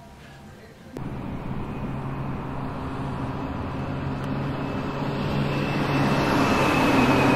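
Car engine and road noise heard from inside the cabin. It starts suddenly about a second in and grows steadily louder.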